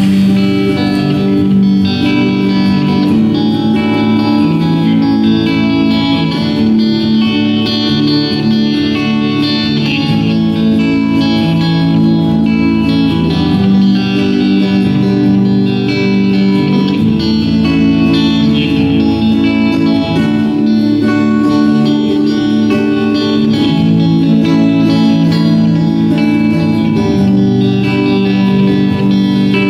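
Student band playing a song live, with guitars to the fore and a steady, full sound.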